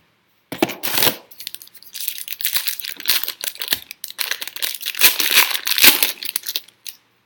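Foil trading card pack wrapper being torn open and crinkled by hand, in three spells of crackling, the loudest near the end.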